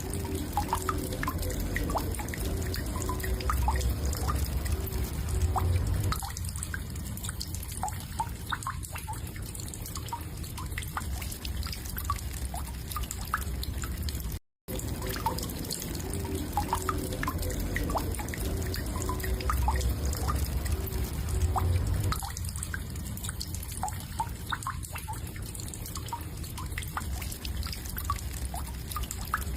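Looped recording of a woodpecker: short, irregular plinking taps scattered over a steady low rumble. It breaks off briefly about halfway and the same passage starts again.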